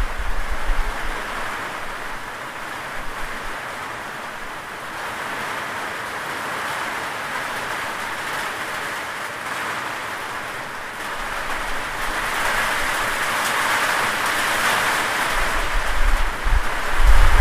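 Steady rain falling, an even hiss that swells about two-thirds of the way through, with a low rumble near the start and again near the end.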